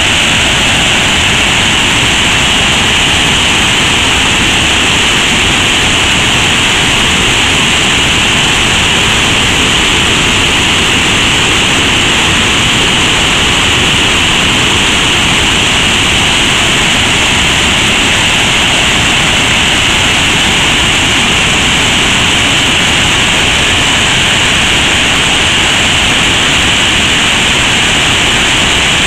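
Waterfall: loud, steady rush of falling water with no break.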